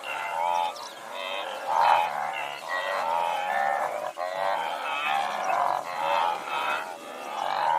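A herd of wildebeest calling in chorus: many nasal grunting calls overlapping without a break.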